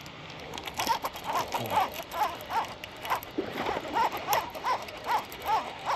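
An animal calling over and over: about a dozen short calls that rise and fall in pitch, two or three a second, starting about a second in.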